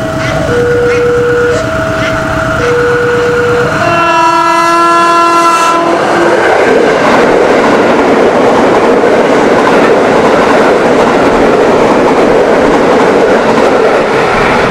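Level-crossing warning alarm sounding in two alternating notes, about one a second. About four seconds in, an electric KRL commuter train gives one two-second horn blast. It then runs close past with a steady rush of wheels clattering on the rails.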